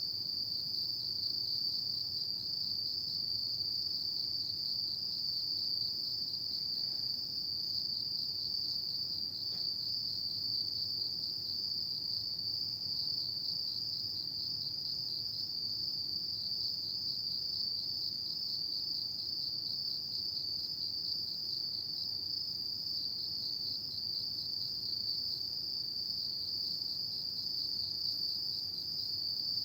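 Autumn insects singing at night: one continuous high-pitched trill with a fine rapid pulse, unbroken and even in level.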